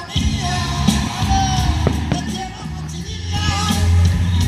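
Music with singing over a heavy, steady bass, with several sharp cracks of fireworks bursting through it.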